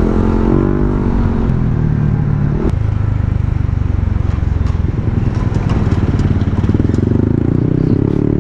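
Yamaha Aerox 155 scooter's single-cylinder engine running under way at low speed, a steady low drone with a higher engine note coming in about halfway through.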